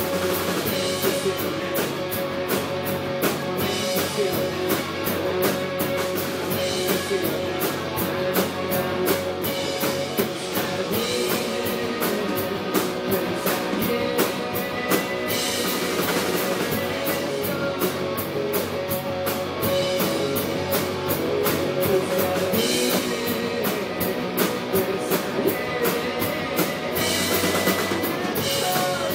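Live rock band playing: two electric guitars, electric bass and a drum kit, with a steady beat of drum and cymbal hits under sustained guitar chords.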